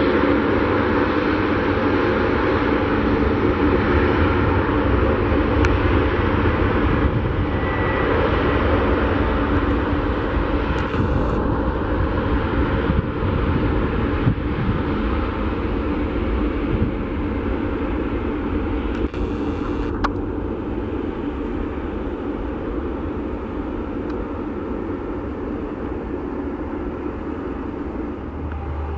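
Airbus A300-600F freighter's twin jet engines at takeoff power through its takeoff roll and lift-off, a loud steady jet noise with a low hum that slowly fades over the last third as the aircraft climbs away.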